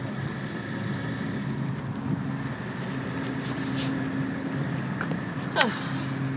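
A steady low mechanical hum, with wind on the microphone. About five and a half seconds in, a short squeak glides quickly downward in pitch.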